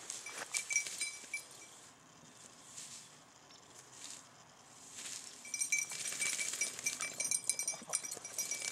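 Small bell on a hunting dog's collar jingling as the dog works through dry grass, with the rustle of the grass under it. The jingling comes in the first second or so, goes quiet, then picks up again and keeps on from about halfway through.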